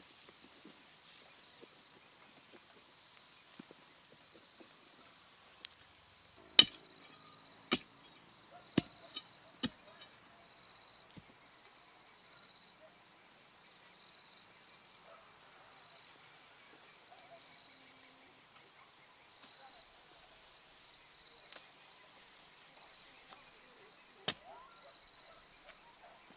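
Steady chirring of insects, with a cluster of five or six sharp knocks about six to ten seconds in and one more near the end.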